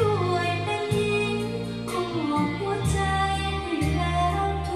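A song with a singing voice, held bass notes and drum hits, played back through Bose 301 Series IV loudspeakers driven by a Luxman L114A integrated amplifier and picked up in the listening room.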